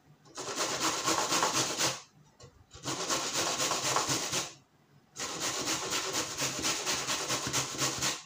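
A carrot being grated on the fine side of a metal box grater: quick, rhythmic rasping strokes in three runs, with short pauses about two seconds and four and a half seconds in.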